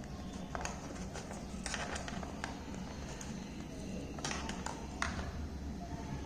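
Light clicks and taps of a small cable and connector being handled, scattered irregularly over a low steady hum.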